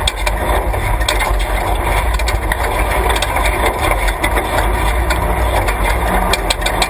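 Class 3 off-road race truck driving on a dirt course: steady engine and running noise with scattered sharp clicks and rattles.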